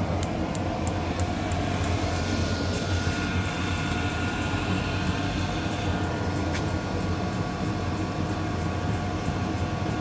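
Eberspächer BA6 gasoline combustion heater running steadily on a bench test: a constant low hum with an even rush of air from its blower and burner. It is running properly after starting.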